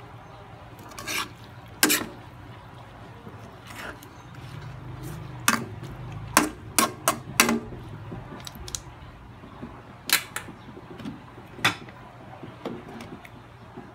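A metal spoon stirring bologna and cabbage in a metal pan, with irregular clinks and knocks as it strikes the pan's sides, over a faint steady hum.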